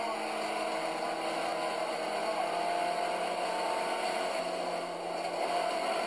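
Race car engine running at a steady, even pitch, heard from inside the stripped, roll-caged cabin over a constant hiss.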